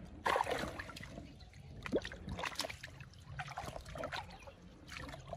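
Muddy pond water sloshing and trickling around hands working fish out of a cast net, with small irregular splashes.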